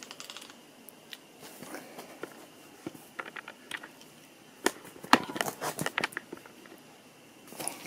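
Air rifle being handled during reassembly: scattered light clicks and knocks of the stock, barrel and small metal parts, with a quick run of louder knocks about five seconds in.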